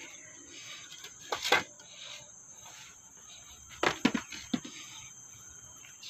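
A few sharp knocks and clunks, one about a second and a half in and a quick cluster around four seconds, over a steady high-pitched insect drone.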